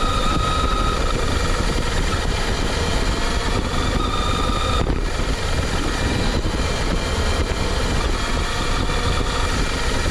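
Electric RC car running, with a steady rumble and hiss of driving noise. A thin high motor whine stops about five seconds in.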